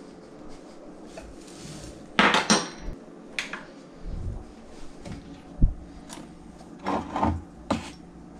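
Kitchen handling clatter: several sharp clinks and knocks of utensils and containers on a countertop, a dull thump midway, and a cupboard door opened near the end, over a steady low hum.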